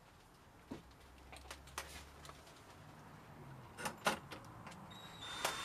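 Clicks and knocks of a cordless driver and its screwdriver bit being handled against the metal latch faceplate of a door lock, the loudest a few seconds in. Near the end the driver's electric motor starts to whine steadily.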